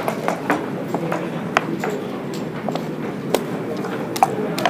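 Backgammon checkers being moved and set down on the board: a series of sharp, irregular clicks over a steady low room hum.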